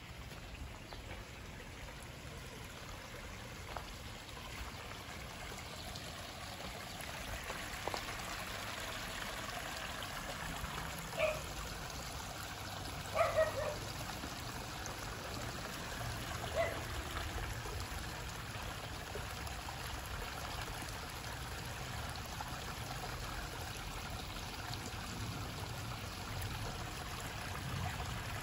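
Small backyard koi-pond waterfall trickling and splashing over rocks in a steady stream, growing slightly louder. A few short chirps cut in near the middle.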